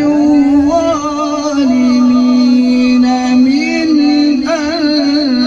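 A male Quran reciter (qari) chanting in drawn-out melodic tajwid style. He holds long notes with wavering ornaments and steps down in pitch a little under two seconds in.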